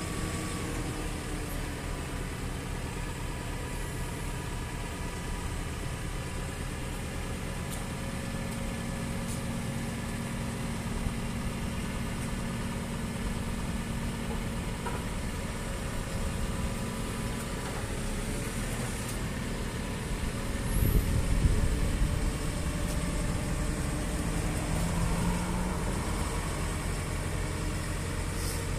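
JCB 540-170 telehandler's diesel engine running steadily while its hydraulics lower the stabilisers and raise the boom. About two-thirds through, the engine gets louder and lower-pitched for a couple of seconds, as under hydraulic load.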